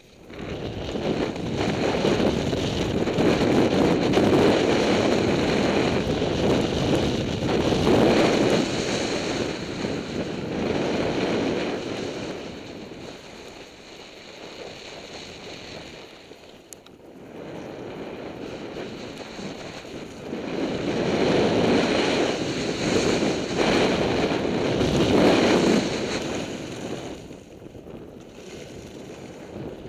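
Wind buffeting the camera's microphone as a skier runs downhill, a loud rushing noise over two long stretches, dropping to a quieter, gustier hiss in the pause between them.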